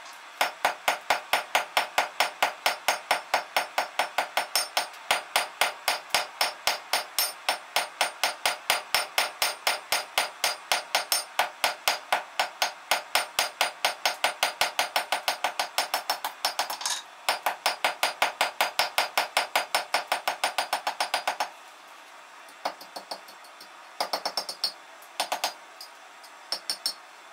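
Hand hammer striking a thin steel rod on a steel anvil in a fast, even rhythm of about four ringing blows a second. The blows stop about 21 seconds in, and a few lighter, scattered clinks follow.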